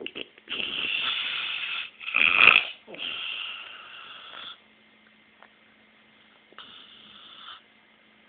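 A man snoring: a run of rasping snore breaths, the loudest about two seconds in, then a quiet pause and one weaker snore near the end.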